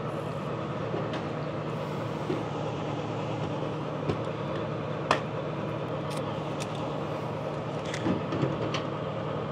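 Steady mechanical hum with a few short, light clicks, the sharpest about five seconds in, from the locking cable and fittings being handled on the engine's oil lubrication unit screens.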